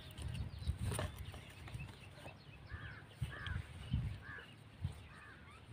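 A bird calling repeatedly: about five short calls, roughly one every half second, starting about halfway in. Under them come irregular low thumps and rustles from hands working at the trap's stick and string.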